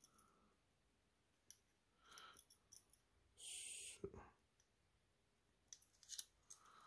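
Near silence with a few faint small metallic clicks as a steel spring-bar tool works a spring bar in the end link of a two-tone watch bracelet, to resize the bracelet. The sharpest click comes about four seconds in, just after a brief soft hiss.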